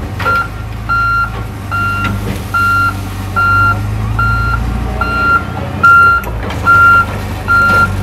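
Crawler bulldozer backing up: its reversing alarm beeps about once a second, a little over ten times, over the steady running of the engine.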